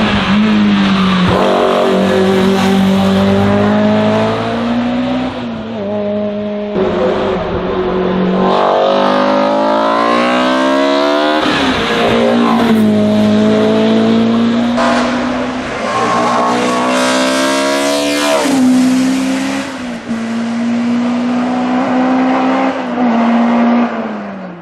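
BMW M3 E30 DTM race car's S14 four-cylinder engine, breathing through a carbon airbox, running hard at full throttle. Its pitch climbs as it pulls through each gear and drops back at each shift, several times over.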